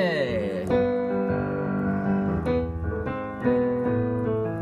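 Piano being played: a quick downward run at the start, then sustained chords that change roughly once a second.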